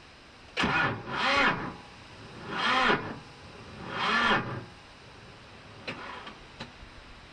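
A cold John Deere tractor's starter motor cranking in short bursts, about four in a row, each rising and falling in pitch, and the engine doesn't catch: the tractor won't start in the cold. A couple of faint clicks follow.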